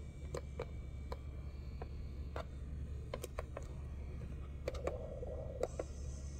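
Irregular plastic clicks as the push buttons on a bassinet's battery-powered soothing unit are pressed and the unit is handled, about a dozen in all, over a steady low hum.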